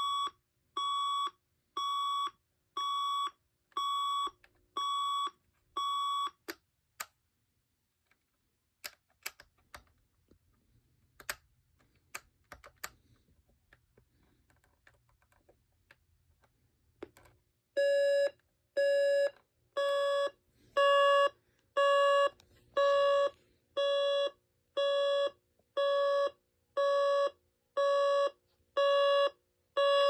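Magnavox AJ3440 alarm clock's alarm beeping about once a second, then stopping after about six seconds. Scattered clicks of its buttons being pressed follow. About eighteen seconds in the alarm starts beeping again once a second, louder and lower in pitch.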